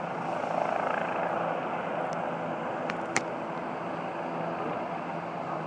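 Steady hum of a distant helicopter under the constant wash of surf breaking on rocks. A single sharp click comes about three seconds in.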